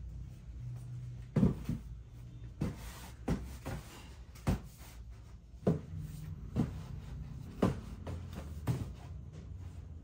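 Cardboard boxes being set down and stacked: a series of about eight short thuds of cardboard on cardboard, roughly one a second, the loudest a little over a second in, over a low room hum.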